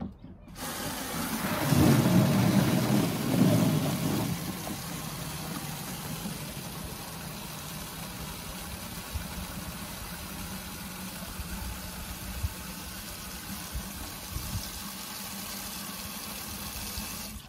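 Mains water from an outdoor tap running into a plastic watering can. It starts about half a second in with a loud, deep splashing into the empty can for the first few seconds, then settles to a steady rush as the can fills.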